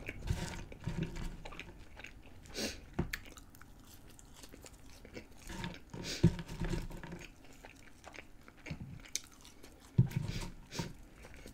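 A person chewing french fries close to the microphone: irregular soft chewing and small crunches, with fingers picking fries off a wooden board. Two sharper knocks stand out about six and ten seconds in.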